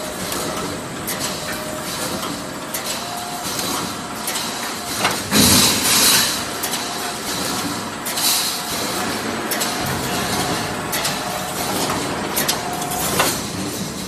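Automatic wire mesh welding machine running: repeated sharp clicks and knocks over a steady machine noise, with two loud hissing blasts, about five seconds in and about eight seconds in.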